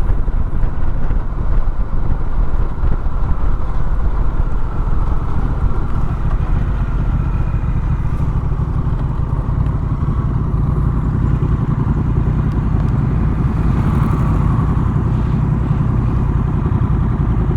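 A road vehicle driving: steady engine and road noise, a dense low rumble with no breaks.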